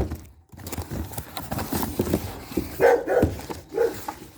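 A dog barking several times, with a few light knocks.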